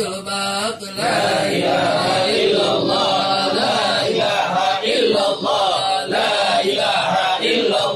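Group of men chanting an Islamic dhikr together, many voices in unison; a single voice leads for about the first second before the group joins in.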